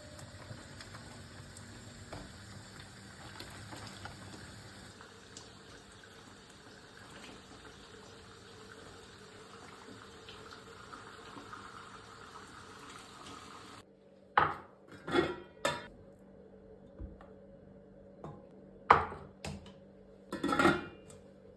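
Dishes and cutlery clinking and knocking, about seven sharp separate clatters in the second half over a faint steady background hum.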